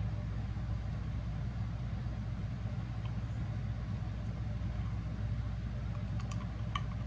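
A steady low mechanical hum, with a few faint clicks near the end.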